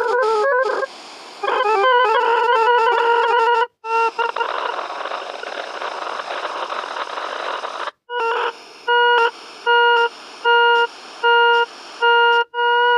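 Synthesized tones from the Desmos graphing calculator's audio trace playing a graph: a buzzy tone whose pitch steps and wavers, then about four seconds of static-like hiss, then a string of short beeps at one pitch, a little over one a second, with the pitch starting to warble near the end.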